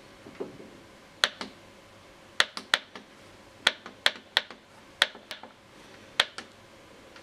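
Push buttons on the Putting Panorama putting simulator's plastic control panel being pressed, giving an irregular series of sharp clicks, many followed by a softer release click.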